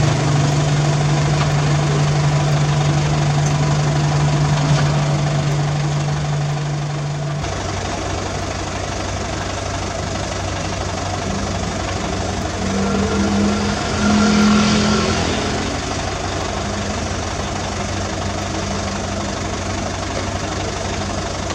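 Diesel engines of a CAT 305E2 mini excavator digging and a Mitsubishi Fuso dump truck, running together in a steady hum. The hum drops to a lower note about seven seconds in, and a louder, higher engine note swells for a couple of seconds about thirteen seconds in.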